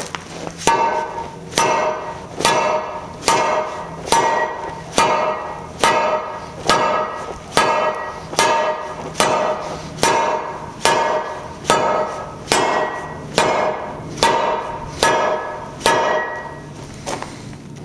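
Hot steel bar being upset by ramming its end down onto a steel floor plate: about nineteen evenly spaced ringing metal-on-metal strikes, a little over one a second, stopping a few seconds before the end.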